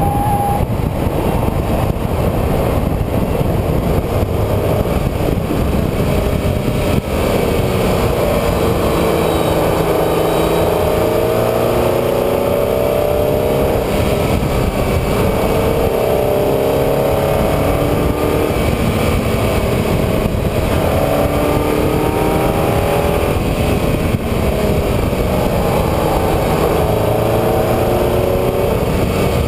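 Onboard sound of a road vehicle driving a winding road: the engine note repeatedly climbs and drops as it accelerates, shifts and slows for bends, over a steady rushing noise.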